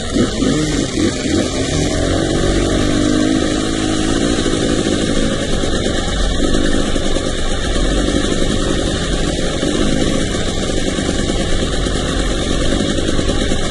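Off-road dirt bike engine running close by, its note rising and falling with the throttle over rough ground, with water splashing near the start.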